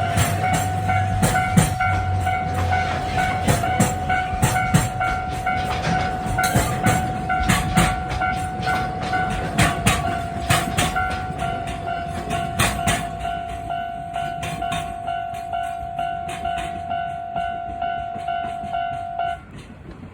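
A train running, with many irregular sharp clicks over the rails and a steady high tone that cuts off near the end; the sound slowly fades.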